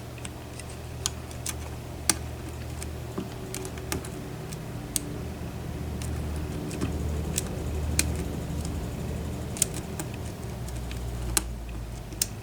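Lock picks working the pins of a pin-tumbler challenge lock: scattered small sharp metallic clicks, a few close together, over a steady low hum.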